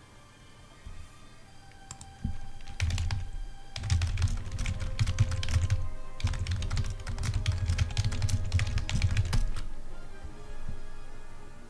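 Fast typing on a computer keyboard: dense runs of key clicks start about two seconds in, pause briefly in the middle and stop near the end, over background music.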